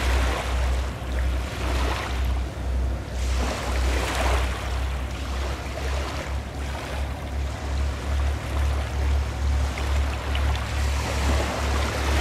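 Sea waves washing in repeated swells, each a rising and falling rush of noise, over a low, evenly pulsing rumble.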